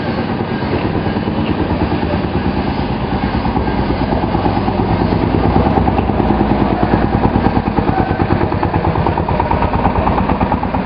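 Industrial machinery running steadily: a loud, continuous mechanical drone with a fast, even pulse, a little louder from about halfway through.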